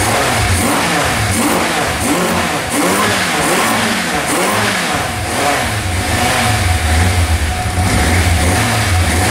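Multi-cylinder motorcycle engine running after a hard start, blipped up and down in quick revs several times in the middle, then settling back to a steady run.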